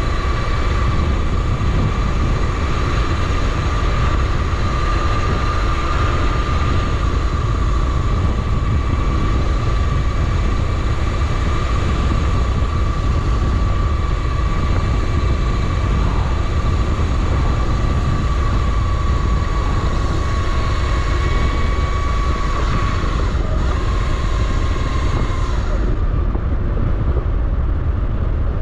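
Wind buffeting the microphone and road noise while riding a Razor RSF650 electric street bike, with a steady high whine from its electric motor that wavers slightly and stops about 25 seconds in.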